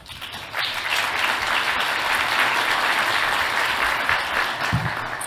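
Audience applause, many people clapping together, starting about half a second in and dying down near the end.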